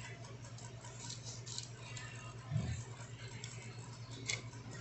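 Quiet handling of a disassembled polisher's parts: a few faint clicks and a soft knock about two and a half seconds in, over a steady low hum.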